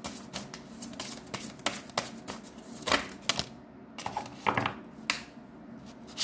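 Tarot deck being shuffled by hand: a quick, irregular run of crisp card clicks and flicks that thins out after about three and a half seconds, followed by a few sharper snaps of single cards.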